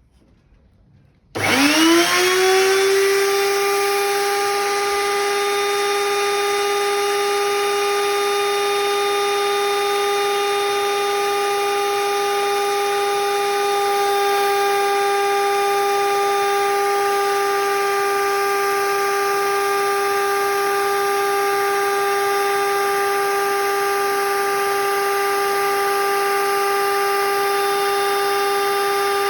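Homemade lathe's electric motor switched on about a second in, its whine rising quickly as it spins up, then running steadily at speed with a high, even hum.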